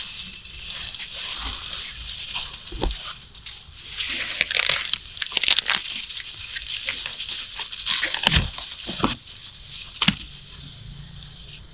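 Dry corn leaves and husks rustling and crackling as ears are harvested, with several sharp snaps and tearing sounds in the second half. It quietens near the end.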